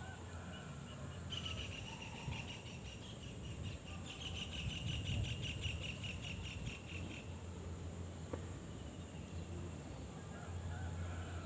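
Insects calling: a steady high-pitched drone, joined from about a second in by a rapid, evenly pulsed chirping that stops a little past the middle, over a low rumble.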